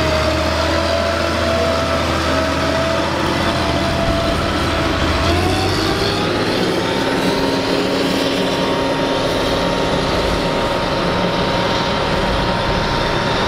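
John Deere 9750 STS combine's 8.1-litre six-cylinder turbo diesel running with its machinery, a loud steady drone. A whining tone in it rises in pitch about five seconds in and then holds.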